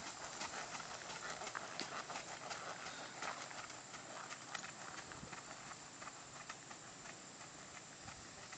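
A horse's hooves clip-clopping on a gravel arena as it goes around under a rider, growing fainter as it moves away.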